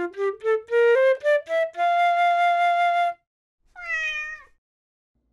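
A short melodic intro jingle: a tune climbing note by note to a long held note. A little later comes a single cat meow that falls in pitch.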